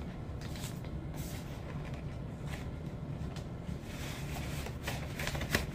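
Steady low rumble of background noise, with a few faint rustles and clicks of a vinyl picture disc in a clear plastic sleeve being handled, more of them near the end.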